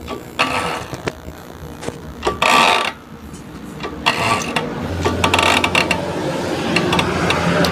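Kick-start mechanism of a Yamaha Jupiter Z four-stroke motorcycle being worked, giving ratcheting 'krek-krek' crunches from inside the crankcase: a few separate crunches, then a quicker run of clicks near the end. It sounds as if something inside is snagging and about to break; the mechanic suspects a part has come loose inside the engine.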